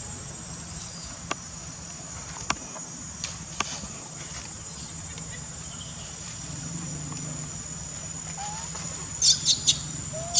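Insect chorus buzzing steadily at a high pitch, with a few faint clicks. About nine seconds in, three short, sharp, high chirps are the loudest sounds.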